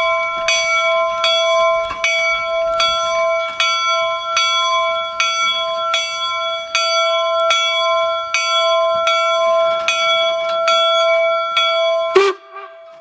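Steam locomotive bell ringing steadily, about one and a half strokes a second. Near the end a sudden loud knock cuts the ringing off.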